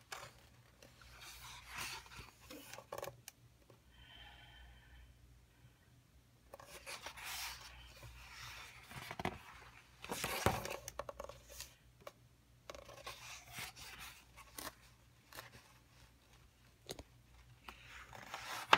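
Pages of a coloring book being turned and handled: intermittent paper rustling and scraping, loudest about ten seconds in.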